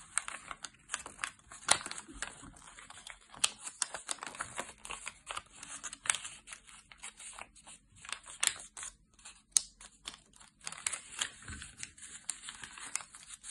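A 15 cm square of origami paper crinkling and crackling as it is folded by hand and pressed flat to crease it: an irregular run of sharp crackles and rustles.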